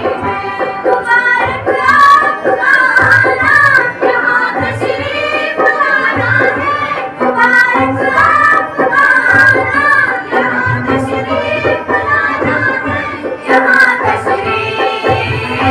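A group of female students singing a welcome song together into microphones, with a steady percussion beat under the voices.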